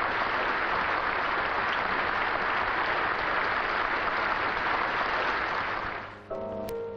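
Sustained applause from a large audience, steady, fading about six seconds in as piano music begins.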